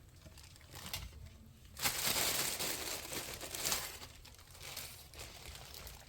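Packaging crinkling and rustling in a few irregular surges, the loudest about two seconds in, as bread buns are handled.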